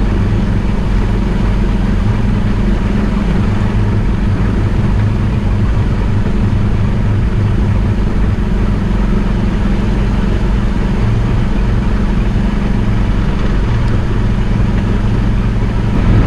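Farm vehicle's engine running at a steady speed while it works the spray rig, a constant low drone with no change in pitch.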